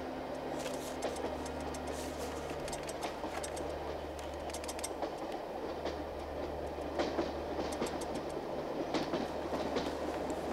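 Train rumbling along as heard from inside a railway compartment: a steady low rumble with a light clatter of wheels over the rails.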